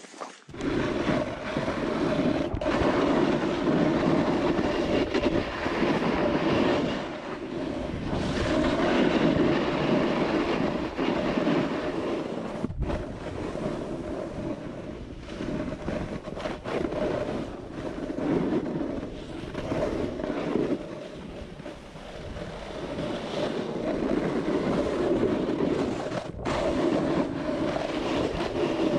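Snowboard base and edges scraping and chattering over icy snow, a continuous rough hiss that swells and eases in long waves as the board turns.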